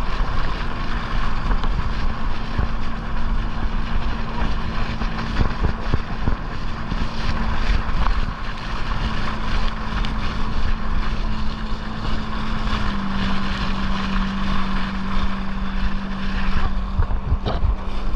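Jet ski engine droning steadily while towing a biscuit tube, over rushing water and wind buffeting the microphone. The engine note drops a step lower about two-thirds of the way through.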